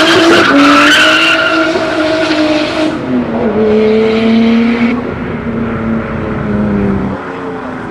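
A drift car's engine revving high as its tyres squeal in a slide. The squeal dies away within the first few seconds, and the engine holds a steady note until it drops off near the end.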